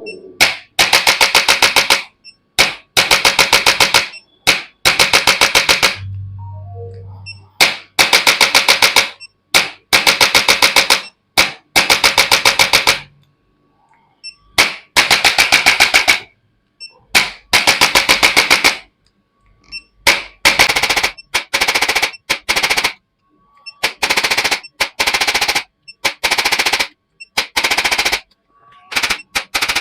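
A handheld electric percussion device fires very rapid, even tapping in repeated bursts of about a second each, with short pauses between them, as it delivers thrusts along the spine.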